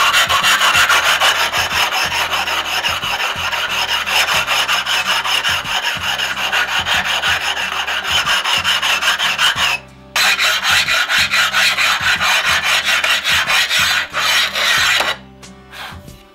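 A 60-grit white rubbing stone is rasped quickly back and forth along the cut edge of a tile, grinding off bumps and beveling the edge. The rubbing breaks off briefly about ten seconds in and stops shortly before the end.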